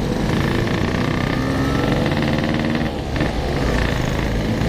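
Two-stroke Yamaha RX-King motorcycle engines running on light throttle on the move, several bikes at once at slightly different pitches. The sound dips briefly about three seconds in.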